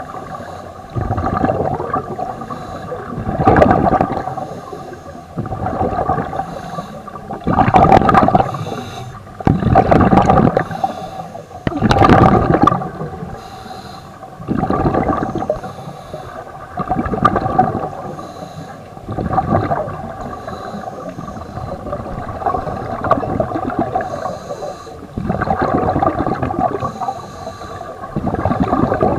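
Scuba regulator exhalations heard underwater: a burst of bubbles rushes out about every two seconds, over a steady hum.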